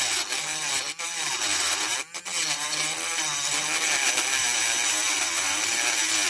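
Battery-powered pen-style rotary tool with a burr grinding down a diecast metal rivet: a buzzing motor whine that wavers in pitch over a gritty scraping hiss. The sound dips briefly about a second in and again at about two seconds.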